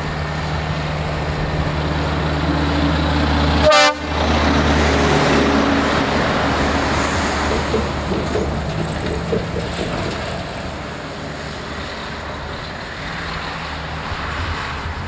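DAF CF lorry's diesel engine running as it drives past. It gives a short horn toot about four seconds in, and the engine and tyre noise then slowly fade as it moves away.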